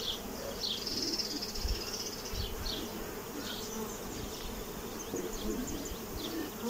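Honeybees humming steadily around an open hive as a comb frame is held up, the sound of a colony with a laying queen. Short high chirps are scattered through the hum, most of them about a second in.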